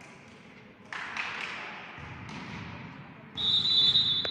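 Volleyball referee's whistle blown once near the end, a steady shrill note of about a second: the signal authorizing the serve. Before it, players' voices echo in the hall.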